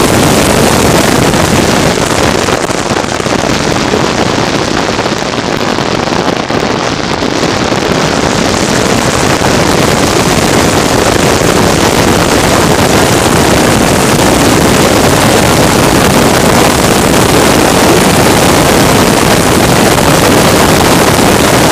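A racing vehicle's engine running hard, heard as a loud, steady, dense noise mixed with wind buffeting the microphone; it eases slightly a few seconds in, then holds.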